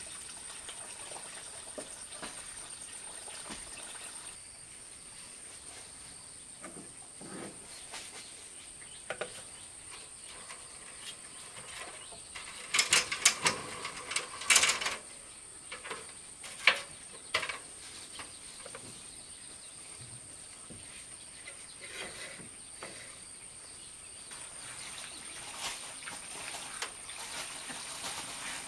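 A steady high-pitched insect trill, with scattered light clicks and knocks from painting a wooden wall by brush from a paint pot while standing on an aluminium step ladder; the sharpest knocks come in a cluster about halfway through.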